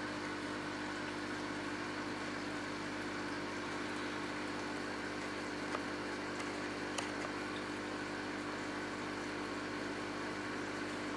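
Small aquarium air pump humming steadily, with water bubbling in the tank; two faint clicks near the middle.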